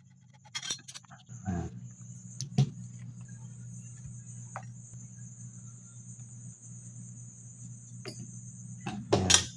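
A few sharp clicks as a gas stove's valve and switch assembly and pliers are handled, over a steady low hum that comes in about a second and a half in and a faint high steady whine.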